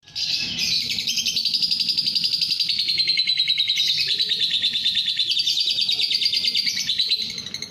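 Lovebird chattering: a fast, unbroken run of high-pitched chirps.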